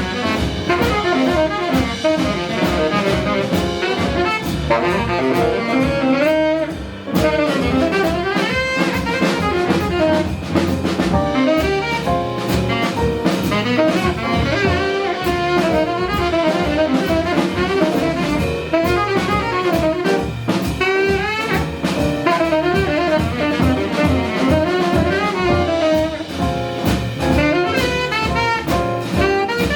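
Live small-group jazz: a saxophone leads with quick melodic runs over piano, bass and drum kit, with a brief dip in the playing about seven seconds in.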